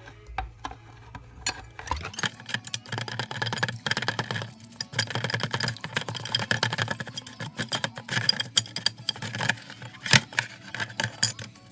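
Metal parts and tools clinking and rattling as they are handled, many quick clicks in a row, over a steady low hum.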